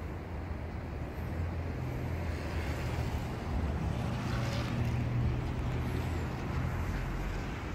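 Steady low rumble of outdoor city background noise, growing a little louder through the middle.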